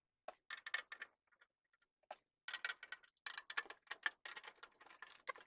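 Faint runs of quick, sharp clicks from a screwdriver undoing the tight screws that hold a tempered-glass PC case side panel: a few clicks at first, then a denser stretch from about halfway in.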